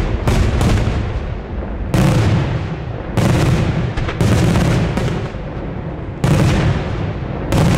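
Daytime fireworks: aerial shells bursting in a rapid run of loud bangs, about one every second or so, with rolling echoes rumbling on between them.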